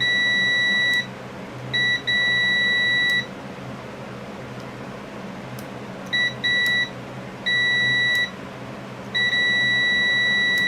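Electrical circuit tester beeping in irregular on-off stretches, from brief blips to beeps over a second long, as a garden tractor's ignition key switch is held in the start position. The broken beeping is the sign of an intermittent contact in the key switch.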